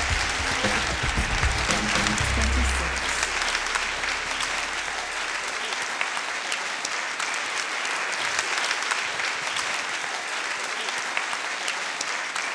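Audience applauding, a dense steady clapping. Music with low bass notes runs under it for the first few seconds and fades out.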